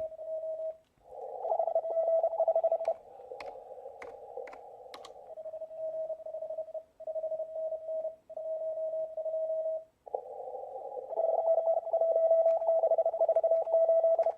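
Morse code (CW) on an amateur radio: one steady-pitched tone keyed on and off in dots and dashes, heard through a narrow CW filter with stretches of band hiss, and a few sharp clicks.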